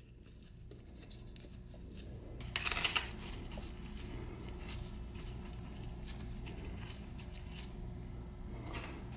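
Nitrile-gloved hands fitting an aluminium T5 transmission top cover and threading its dowel bolts by hand: faint scraping, rubbing and small metal clicks, with one brief louder scrape about two and a half seconds in, over a low steady room hum.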